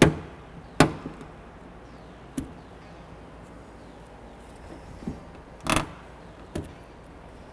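Plastic door-panel trim clips being pried out of a car door with a panel clip tool: several short, sharp snaps at uneven intervals.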